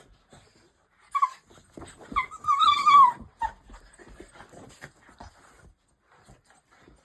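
Cocker spaniel puppy whining: a short whine about a second in, then a longer wavering whine, with scattered scuffling and clicking noises around it.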